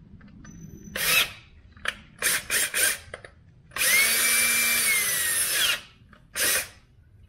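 Cordless drill on low speed, run in several short bursts, then once for about two seconds, then one more short burst: drilling out a stripped bolt thread in a Subaru WRX's aluminium cylinder head to take a helicoil.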